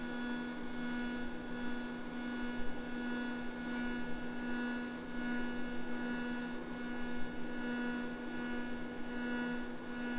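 Pulsed TIG welding arc from an ESAB Fabricator ET 410iP inverter welder, giving a steady low-pitched buzz set by the high pulse frequency. The buzz stops at the very end as the arc is broken.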